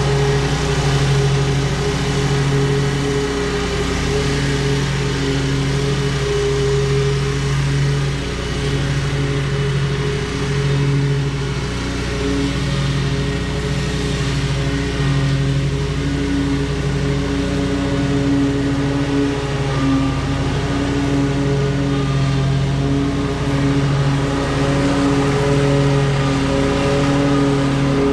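Toro Z-Master 4000 zero-turn mower running steadily while cutting grass, its engine hum holding an even pitch. It fades a little as the mower moves off across the yard, then grows louder as it comes back near the end.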